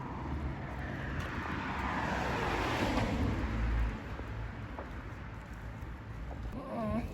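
A vehicle passing close by: its road and engine noise swells to a peak about three seconds in and then fades. Near the end a dog gives a short whine.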